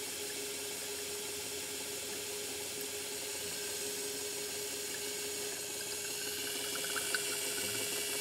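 Red Sea ReefBot's small pump running with a steady hum while water runs through it, flushing the cleaning chamber. A few faint ticks come near the end.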